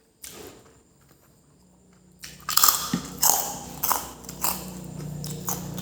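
Close-up chewing of fried noodles: mostly quiet at first, then from a little over two seconds in a run of loud, crunchy chewing strikes, about one or two a second.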